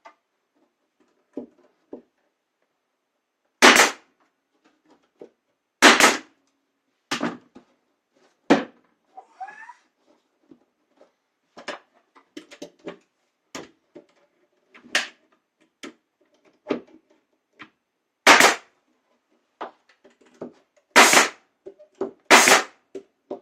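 Pneumatic nail gun firing short fasteners into a wooden backer block: about five loud, sharp shots spread irregularly, with lighter knocks and tool handling in between.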